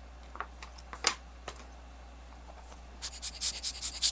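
A few small clicks and taps of tiny watch parts being handled with a tool, then about three seconds in a rapid run of scratchy strokes, about five or six a second.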